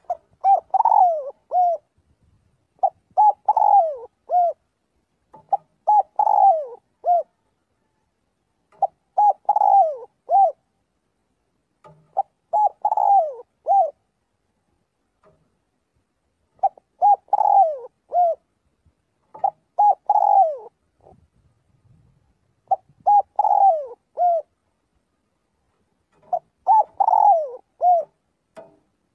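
Spotted dove calling: a phrase of three or four cooing notes, one of them bending up and then falling, repeated nine times about every three seconds.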